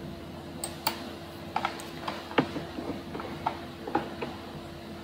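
Irregular light clicks and taps, about ten of them, over a faint steady hum.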